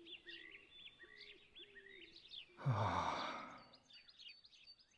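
Small birds chirping in short repeated calls, with a single sigh about three seconds in, louder than the birds.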